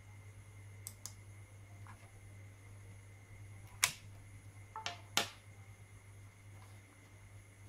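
Light clicks over a steady low electrical hum: two quick clicks about a second in, then three louder, sharper clicks between about four and five seconds. The first two are a laptop mouse click closing a program dialog.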